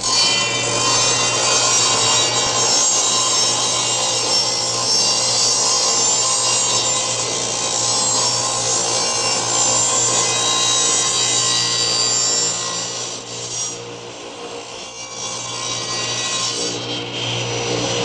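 A loud, steady, harsh rasping noise like a saw or power tool, with a constant hum under it. It starts suddenly, eases off about thirteen seconds in and grows again near the end.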